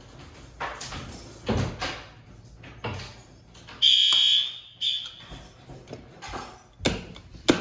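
A fire alarm device's electronic beeper gives one loud, high-pitched beep lasting under a second about four seconds in, then a fainter short beep. Knocks and rattles of handling come before and after it.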